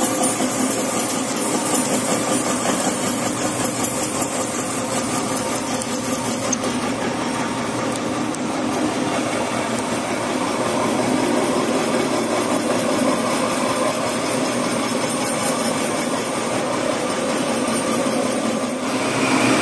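Horizontal boring mill boring out a weld-repaired steel bore: the spinning boring bar cutting through weld buildup with a steady machining noise that pulses rhythmically, harder in two stretches, as the cutter meets the uneven weld.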